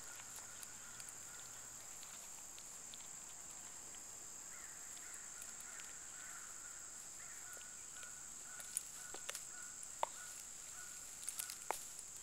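Quiet outdoor ambience with a faint, distant bird calling on and off from about the middle, and a few soft clicks in the last few seconds.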